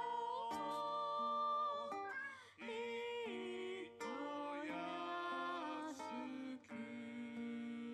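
A recorded song playing: acoustic guitar with a singing voice holding long notes.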